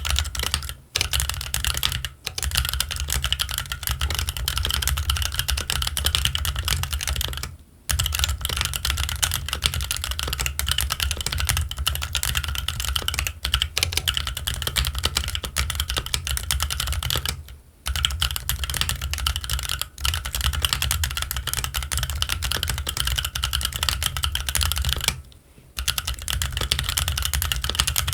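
Fast, continuous typing on a Keychron Q1 mechanical keyboard with Gazzew Boba U4T tactile switches and Cherry-profile ABS keycaps: a dense run of keystrokes, broken by a few brief pauses.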